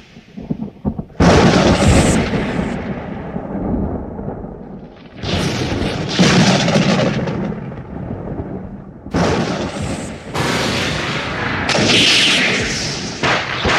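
Thunderclaps, likely a sound effect, crashing in one after another: about five sudden loud cracks, each followed by a rumble that dies away over a few seconds.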